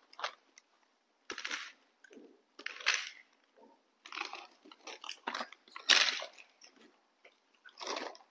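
Plastic snack bags crinkling as crunchy snack sticks are poured out onto plates, in five short rustling bursts a second or two apart.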